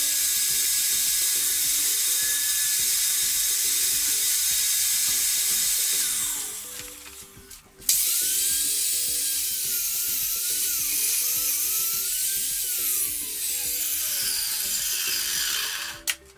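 Wet-and-dry shop vacuum running, sucking up concrete dust and rubble through its hose with a loud rushing hiss and a whine that wavers in pitch. About six seconds in it winds down, and it is switched back on about two seconds later.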